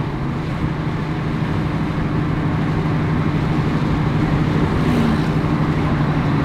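Car engine running at a steady cruise in an open-top convertible, a low even hum under wind and road noise.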